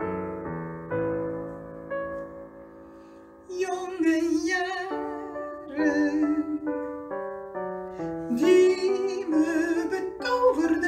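Music: keyboard chords held and fading, then about three and a half seconds in a woman's voice enters, singing long notes with vibrato over the keyboard accompaniment.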